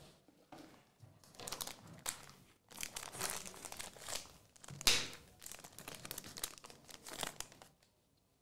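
Foil trading-card pack wrapper crinkling and tearing as it is opened by hand, a run of sharp rustles with the loudest about five seconds in.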